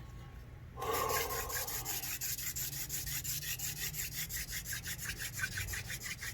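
Hand drill spun back and forth between the palms, its tip grinding into a palm-frond hearth board: a steady rasping rub in quick, even strokes that starts about a second in. The grinding wears a dark powder from drill and hearth that is meant to build up into a glowing coal.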